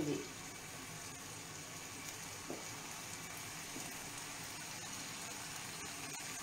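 Steady, even hiss of food cooking on a gas stove: the sauce sizzling in the frying pan, with the pot of broth at the boil.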